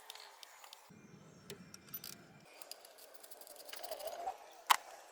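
Faint, scattered clicks and taps of tools and parts being handled, with a short spell of low rumbling noise early on and one sharper click near the end.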